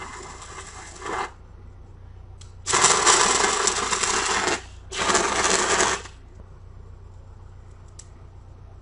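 Welding arc crackling and sizzling in bursts: one dies out about a second in, then a loud stretch of about two seconds and a shorter one of about a second, over a steady low hum.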